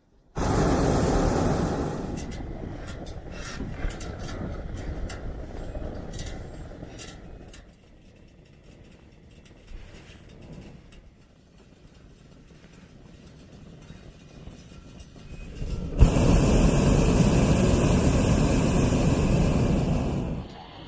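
Hot air balloon's propane burner firing: a blast cuts in suddenly at the start and eases off after about two seconds, and a second blast of about four and a half seconds cuts in abruptly near the end. In between, a quieter rushing noise with scattered clicks.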